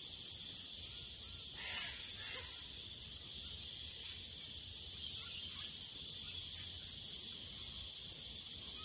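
Bushland ambience: a steady high-pitched insect chorus, with a couple of faint brief calls about two seconds in and again around five seconds.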